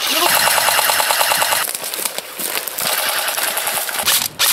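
Airsoft rifles firing on full auto: a rapid, even rattle of shots that breaks off briefly a few times.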